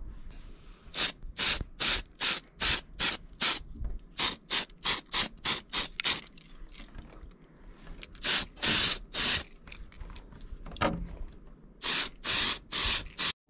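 Tamiya PS aerosol spray paint can hissing in many short bursts, a few quick runs of quarter-second sprays with two longer ones about two-thirds through, misting light coats onto the inside of a clear Lexan RC body.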